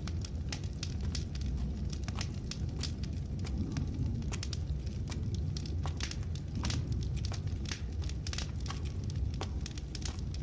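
A fire crackling: irregular sharp pops and snaps over a steady low rumble.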